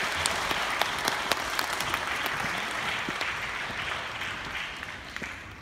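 Audience applauding, a dense patter of clapping that gradually thins and fades out near the end.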